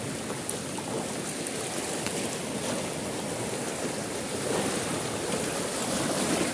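Seawater of a high tide that is still rising, washing in through mangrove roots with small waves breaking and rushing over the flooded ground. It makes a steady wash that swells slightly near the end.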